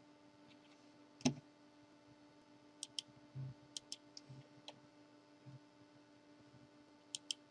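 Computer mouse clicking: a single sharper click, then several quick double clicks, over a faint steady hum.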